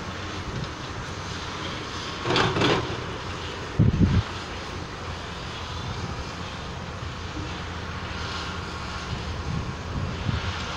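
CAT 320E hydraulic excavator's diesel engine running steadily under load as the machine swings and digs. A rustling burst about two seconds in and a heavy thump about four seconds in stand out over the drone.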